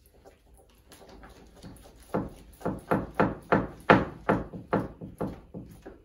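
A Jubilee clip (worm-drive hose clamp) being tightened with a hand driver over the rubber O-ring on a bagpipe chanter stock, clamping the bag's seal. After quiet handling, about a dozen short clicking strokes come at two to three a second, starting about two seconds in.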